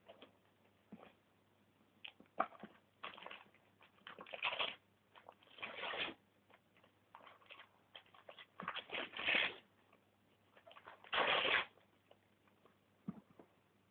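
Wrapping paper crinkling and tearing as a dog pulls a birthday present open, in short, irregular bursts of rustling and ripping.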